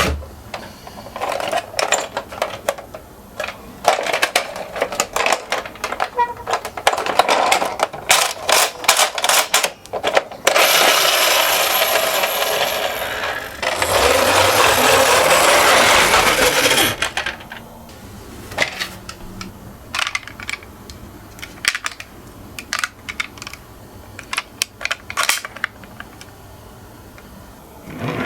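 Toy minicars clicking and clattering against a hard track. About halfway through come two stretches of steady rolling noise, three seconds or so each, as the cars roll down the slope.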